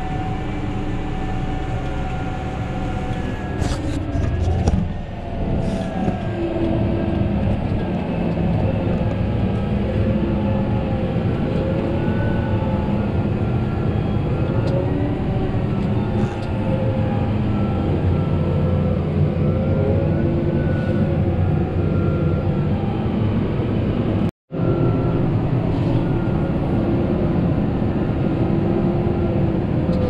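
Steady machinery drone from inside a Case IH tractor cab as it runs alongside a John Deere self-propelled forage harvester chopping corn silage into the cart, with a wavering whine over the engine noise. The sound cuts out for an instant about three-quarters of the way through.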